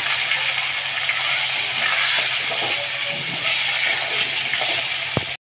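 Bitter gourd pieces sizzling steadily in hot oil in a kadai. The sound cuts out briefly near the end.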